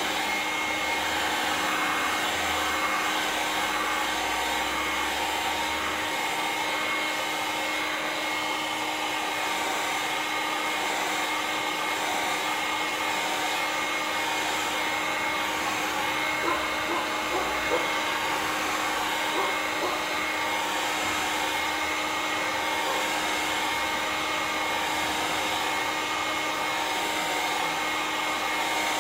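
Gamma electric heat gun running steadily: a constant rush of blown air with a faint steady whine. It is heating a thin PVC sheet until it goes very limp.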